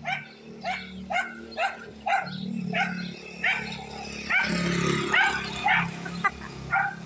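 A dog barking repeatedly, about twice a second, from a passing motorcycle, with the motorcycle's engine running underneath.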